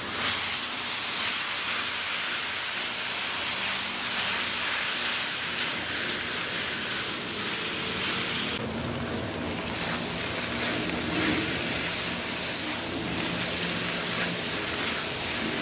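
Vegetable lo mein noodles sizzling steadily in a hot cast iron wok while being stir-fried and tossed with a spatula.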